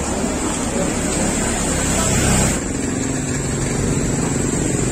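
Street ambience with a motor vehicle engine running and passing, over a steady high hiss. The sound changes abruptly a little past halfway, where the engine drone becomes more distinct.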